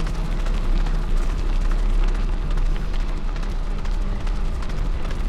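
Steady wind rush on the microphone and the rumble of a bike rolling along a dirt trail at speed, with faint scattered ticks throughout.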